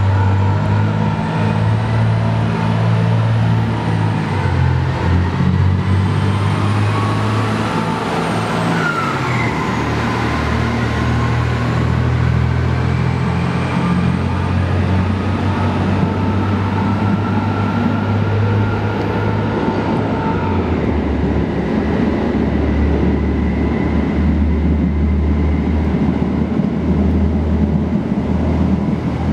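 ET122 diesel railcar pulling away under power: a steady engine drone whose pitch shifts in steps, echoing in the rail tunnel.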